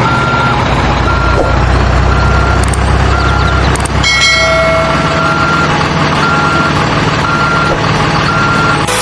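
Truck reversing alarm beeping steadily about once a second over a running truck engine: the sound of a dump truck backing up, as played by a toy truck or as a dubbed sound effect.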